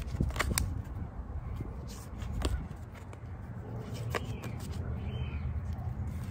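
Tarot cards handled and fanned through by hand: scattered light clicks and slides of card stock as the cards are spread, over a steady low rumble.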